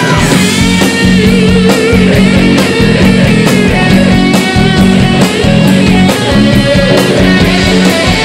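Live rock band playing loud: electric guitars and bass over drums.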